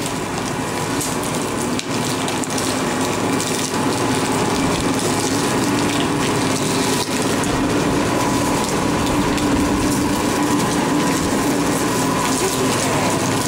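Motor-driven roller sugarcane crusher running with a steady hum while cane stalks are fed between its grooved steel rollers and crushed.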